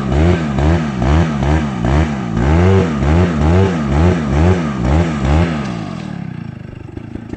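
Gasoline engine revved up and down over and over, about twice a second, its pitch rising and falling with each rev; the revving stops about six seconds in, leaving a quieter rough running noise.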